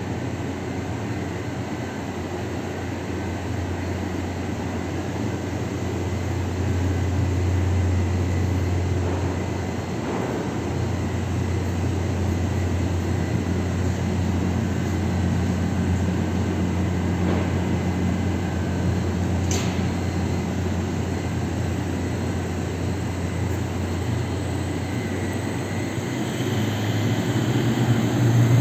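Glass tempering furnace line running: a steady machine hum with rushing air noise from its blowers. A single sharp tick a little over two-thirds of the way through.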